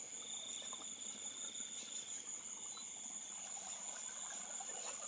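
Night insects, crickets among them, calling steadily: a continuous high-pitched ringing, with a lower trill that fades in and out.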